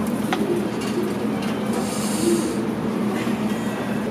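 Steady background din of a station ramen stall with a low hum, a glass tumbler set down on the stone counter with a single click about a third of a second in, and a brief hiss around the middle.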